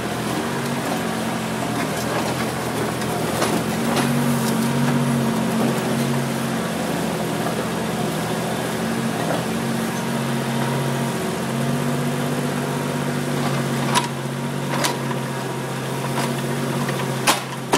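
JCB 3CX backhoe loader's diesel engine running steadily, its pitch lifting a little at times, with three sharp knocks in the last few seconds.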